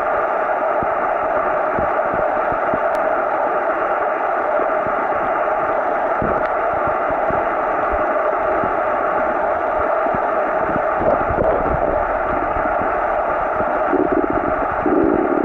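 Muffled underwater sound picked up by a submerged camera: a steady hiss with uneven low rumbles as water moves against the camera.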